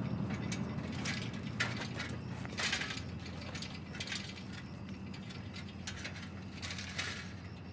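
Bicycle's freewheel and chain clicking and rattling in several short, irregular bursts as the rider sets off.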